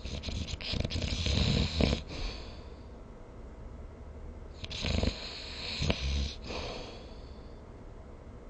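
A person snoring in sleep: two snoring breaths about four and a half seconds apart, each with a low snore and a breathy hiss.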